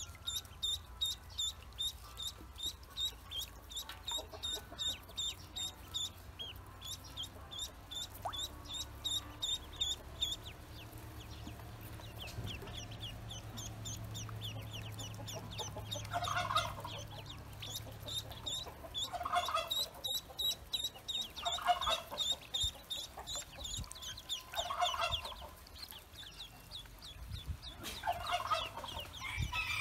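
Pekin ducklings peeping: short, high, thin peeps repeated several times a second. From about halfway through, a louder, lower bird call comes five times, roughly every three seconds.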